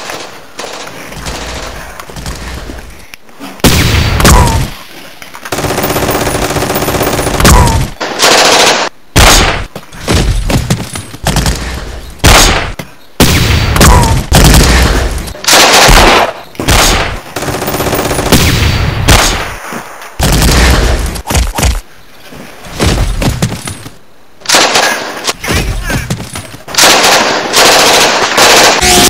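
Gunfire: repeated bursts of automatic fire mixed with single shots, starting about three seconds in and going on in volleys with short gaps.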